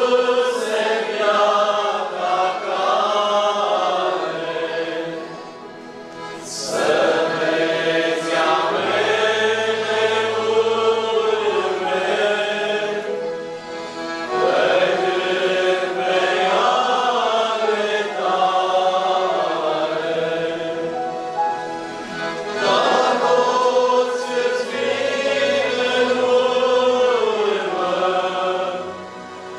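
Church choir singing a hymn with accordions and keyboard, in long phrases of about seven seconds with brief pauses between them.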